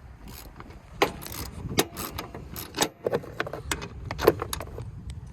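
Irregular metallic clinks and rattles of tools and parts being handled on a riding mower's deck, sharpest about four seconds in, over a low steady rumble.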